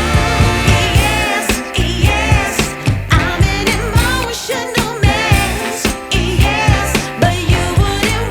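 Background music: a song with a vocal melody over a steady beat.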